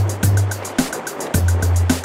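Background music with a fast, steady beat of ticking hi-hats over a deep, sustained bass line.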